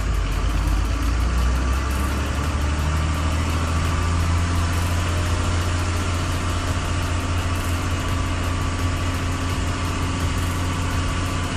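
Truck engine running with a steady deep hum, heard from inside the cab while driving.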